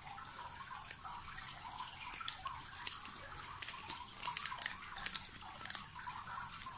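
Clear plastic sleeve crinkling and crackling as it is slid off a new smartphone, in many short irregular crackles.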